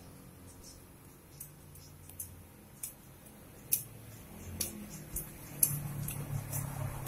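Sparse metal clicks of a wrench working the oil drain bolt on a Honda Supra X 125 engine, about one every half to one second, growing a little more frequent after the middle. A faint low hum sits underneath.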